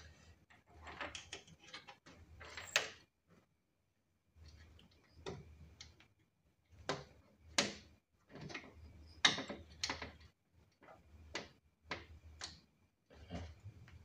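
Scattered, irregular plastic clicks and taps from hands working a PV cable into a solar panel's plastic junction box, with a short pause about three seconds in.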